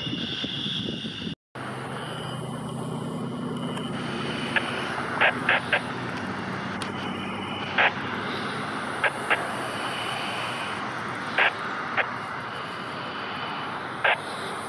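F-15C's twin Pratt & Whitney F100 turbofan engines running at taxi power, a steady whine over a low hum, with the sound cutting out for an instant about a second and a half in. About ten short sharp chirps stand out above it, some in quick pairs and threes.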